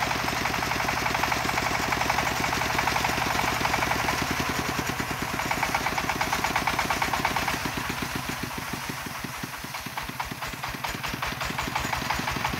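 Single-cylinder diesel engine of a công nông farm truck chugging with an even, rapid beat. It eases off, slower and quieter, about two-thirds of the way through, then picks up again near the end.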